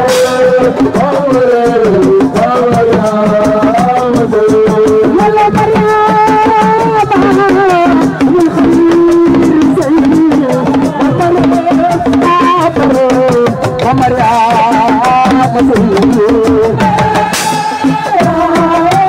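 Live assiko band music: fast, dense hand-drum strokes under a continuous wavering melodic line.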